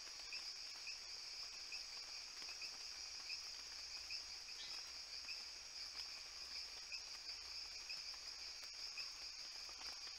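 Faint insect chorus: a steady high-pitched trill with a lower chirp repeating at an even pace.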